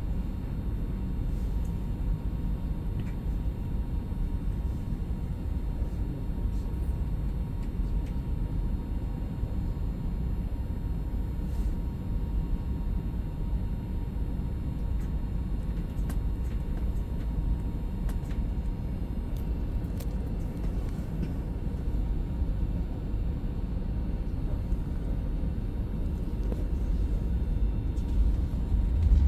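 Steady low rumble of a train running, with a faint steady tone and occasional light clicks, growing a little louder near the end.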